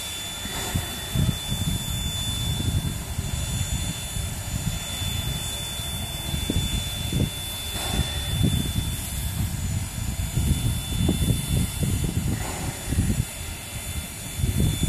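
Wind buffeting the microphone in irregular low gusts over a steady background hiss.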